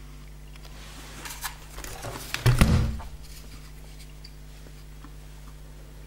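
Handling noises from a plastic 1/10-scale RC truggy chassis: a few light clicks and knocks, then one low thump about two and a half seconds in as the car is turned over and set down on a wooden board.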